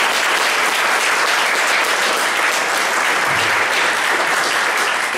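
Audience applauding, a steady dense clapping that holds at full strength throughout.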